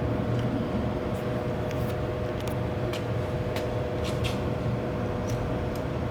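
Vendo 511 soda vending machine running with a steady hum, over which there are scattered light clicks.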